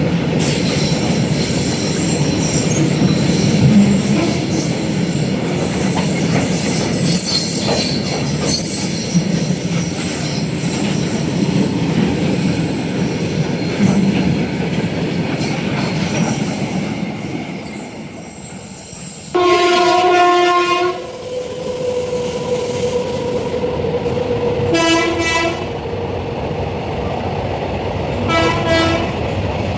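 Indian Railways train passing at speed, its wheels clattering and squealing on the rails, the noise dying away after about 18 seconds. A train horn then sounds one long blast, followed by shorter blasts near the end.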